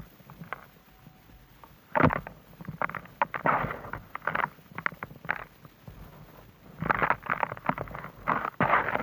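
Gritty, crumbly blocks crunching and crumbling in short irregular clusters of crackles, with quiet gaps between: one burst about two seconds in, a longer run in the middle, and another dense run near the end.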